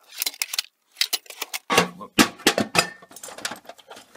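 Metal hand tools (spanners and sockets) clinking and clattering as a hand rummages through a toolbox drawer, in irregular bursts of sharp knocks.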